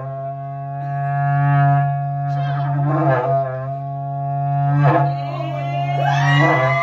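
A berrante, the Brazilian cattle horn, blown in one long sustained note whose tone changes colour a couple of times and bends upward near the end.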